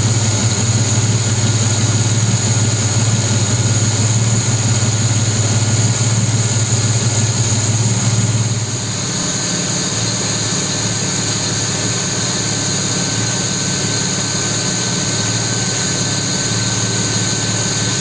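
Freshly rebuilt Jaguar 3.8-litre XK twin-cam straight-six engine running steadily at idle on a test stand. Its tone shifts slightly and it becomes a little quieter about nine seconds in.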